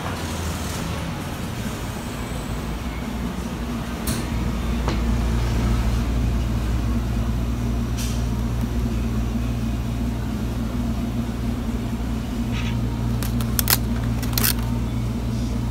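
Steady low hum of a refrigerated food display case. Over it come a few sharp clicks and crackles of clear plastic sushi packs being handled, bunched near the end.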